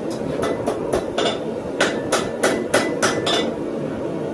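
Hand hammer striking hot steel on an anvil, straightening a freshly bent forged J hook: a run of five quick blows, a short pause about a second and a half in, then a second run of six.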